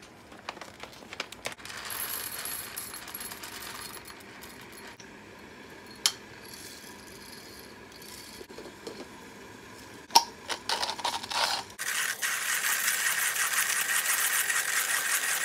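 Clicks and small clinks of glass and metal as a Comandante hand grinder and its glass grounds jar are handled and unscrewed, with a sharp knock about ten seconds in. Near the end comes a few seconds of steady hissing noise.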